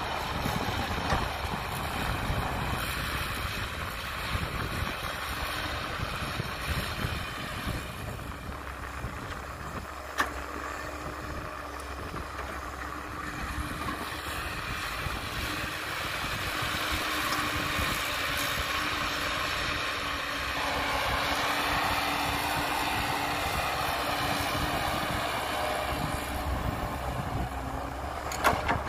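Heavy earthmoving machinery engine running steadily, with a faint steady whine through the middle and a few sharp knocks: one about ten seconds in and a pair near the end.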